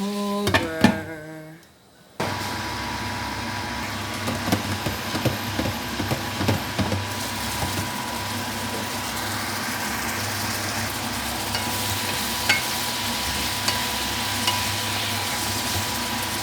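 Chicken pieces sizzling in a covered frying pan: a steady frying hiss, with a run of light clicks and taps a few seconds in and a few single ticks later.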